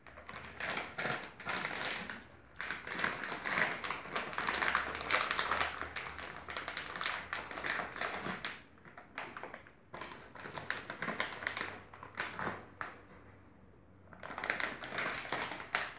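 Crinkling plastic candy packaging and light taps of marshmallows being put into a blender jar, in several bursts of dense crackling clicks with short pauses between.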